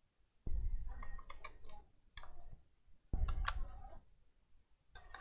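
Sharp clicks and low knocks of a screwdriver and screws working on a laptop's case, in two short bursts: one about half a second in and a louder one about three seconds in.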